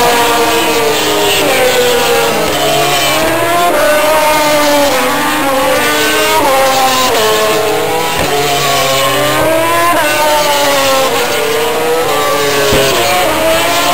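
MotoGP racing motorcycles' 800 cc four-stroke engines passing at racing speed, several bikes overlapping, each engine's pitch climbing through a gear and dropping sharply at every upshift.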